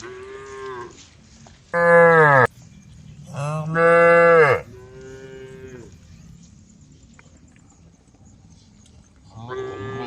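Cows mooing to call the herd: about five long calls, the two loudest around two and four seconds in, with another starting near the end.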